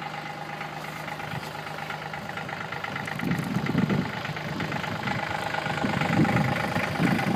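Kubota compact tractor's diesel engine idling steadily. From about three seconds in, louder uneven low rumbling is heard over it.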